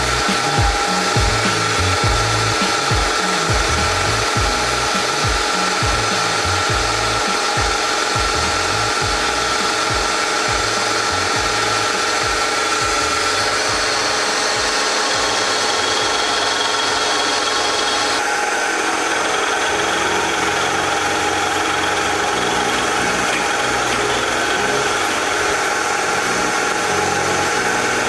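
Milling machine running, its cutter scraping a 3 mm valve-relief pocket into the crown of an aluminium CBR piston: a steady motor hum over a continuous rasping cutting noise.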